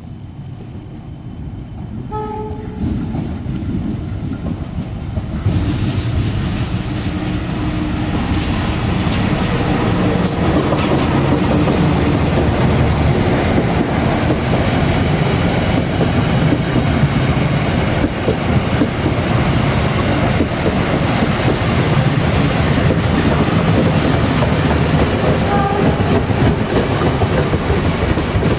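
Local passenger train, a diesel locomotive hauling coaches, running into the station and passing close by. The rumble and rail noise build over the first several seconds as it nears, then hold steady and loud while the coaches roll past.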